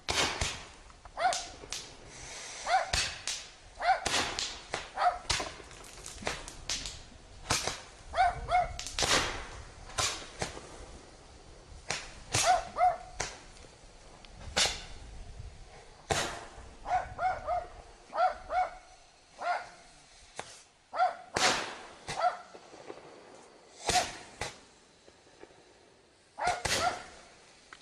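Consumer fireworks going off one after another: sharp pops and bangs from small aerial effects, every second or two. Short pitched yelps, often in pairs, come between many of the bangs.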